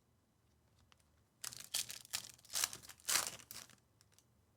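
Foil trading card pack wrapper tearing and crinkling, in several short rustles over a couple of seconds, as a pack is ripped open.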